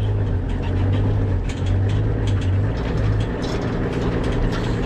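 Vehicle engine running with a steady low drone and a few light clicks and rattles over it.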